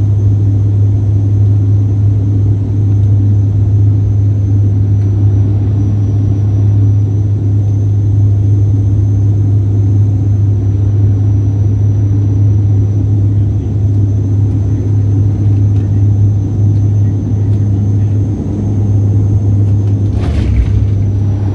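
Passenger plane's engines heard from inside the cabin: a steady drone with a strong low hum and a faint high whine. Near the end the rumble turns rougher, with a few jolts as the wheels run on the runway.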